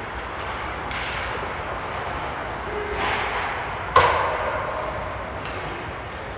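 Ice hockey game in an arena: skate blades scraping the ice, and about four seconds in a single sharp crack of a hard impact that rings through the rink.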